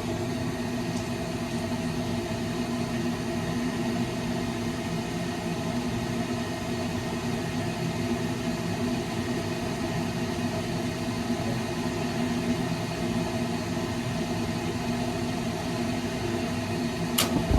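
Steady whir and hum of running furnace equipment, with several steady tones over a noise haze, and one sharp click near the end.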